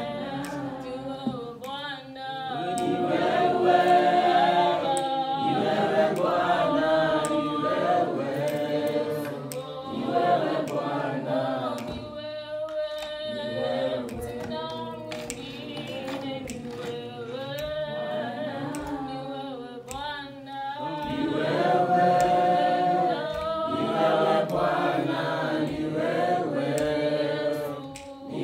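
A group of voices singing unaccompanied, choir-style, with long held notes and swelling loudness; the singing breaks off briefly about twelve seconds in and again around twenty seconds.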